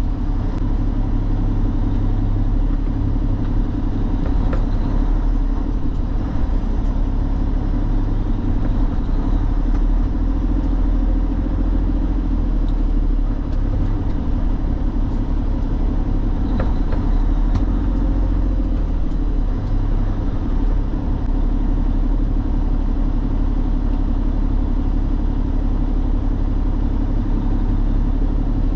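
Heavy truck's engine running with a steady low rumble, along with road and cab noise.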